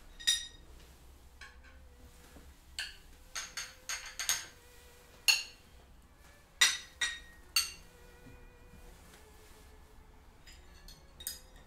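Teaspoon and china tableware clinking: about a dozen short, ringing clinks in irregular clusters, the loudest near the middle.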